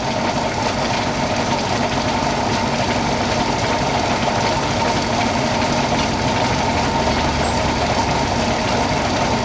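A motor running steadily, with a constant, unchanging drone.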